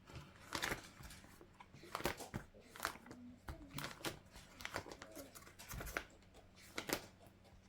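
Paper handled close by: irregular crinkling and rustling with short, sharp snaps scattered through.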